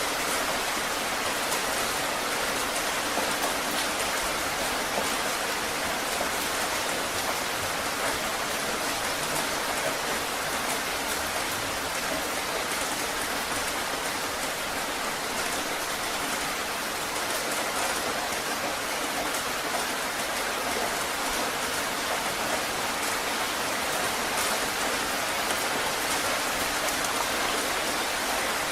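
Heavy rain falling steadily, an even hiss of drops with fine scattered patter.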